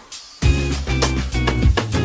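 Background music with guitar and a steady beat; a brief gap at the start before it resumes about half a second in.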